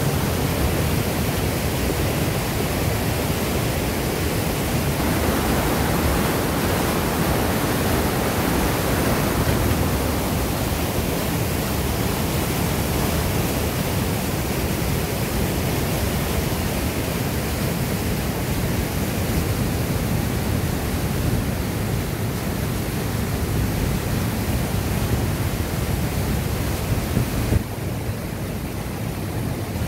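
Whitewater rushing through a narrow rock channel below a waterfall: a loud, steady rush of water, a little quieter and duller for the last couple of seconds.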